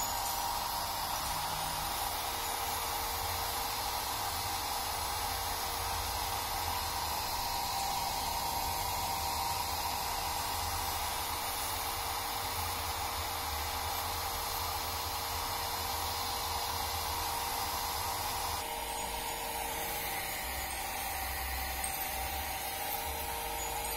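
Small handheld hair dryer running steadily as it blows on a long-haired cat's fur, a constant hiss with a faint motor hum; the upper hiss drops a little about three-quarters of the way through.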